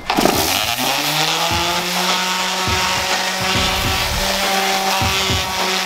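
Orbital sander switched on, its motor whine rising for about a second and a half, then settling into a steady hum over a gritty hiss. It is sanding a milk-painted wooden stool seat with 220-grit paper, taking off the loose paint to distress the finish.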